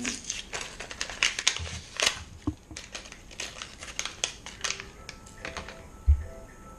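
Plastic lure packaging crinkling and crackling in irregular bursts as it is pried and torn open by hand, with one sharp thump about six seconds in.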